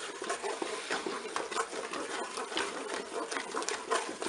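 A spatula stirring peach chunks and sugar in a Cookeo multicooker bowl: a steady run of small scrapes, clicks and wet squelches.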